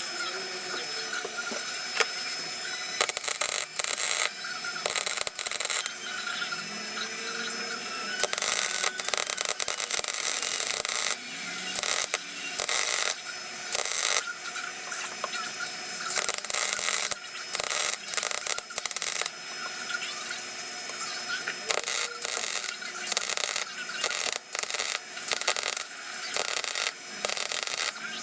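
MIG welder stitching a sheet-steel floor repair panel into place. It crackles in short, sharp-edged bursts, about a dozen of them, each lasting from under a second to a few seconds, with a steady hum in the gaps.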